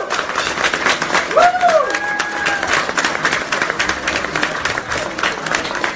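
Restaurant diners applauding steadily, with a short rising-and-falling cheer from one voice about a second and a half in.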